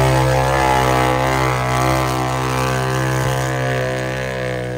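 Off-road mud racer's engine running hard at a nearly steady pitch, slowly growing fainter.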